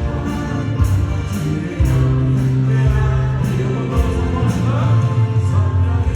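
Worship band playing a praise song: voices singing over keyboards, acoustic guitar and drums, with cymbal hits keeping a steady beat.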